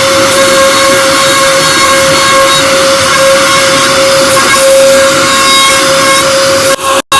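CNC router spindle running with a steady whine as its bit cuts an MDF sheet, over a loud rushing cutting noise. The sound cuts out for a split second near the end.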